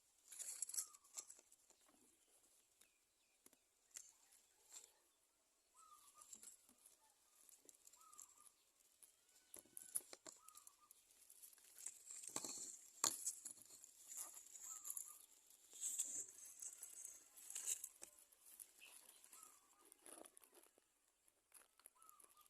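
Society finches in a nest: faint scratchy rustling and ticking of nest material, with soft short chirps scattered throughout.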